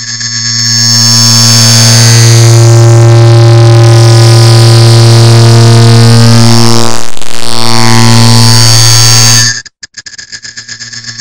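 A clock-ticking sound multiplied and sped up into a very loud, distorted drone: a steady low buzzing tone with many overtones. Near the end it cuts out into a rapid rattle of ticks that swells back up in loudness.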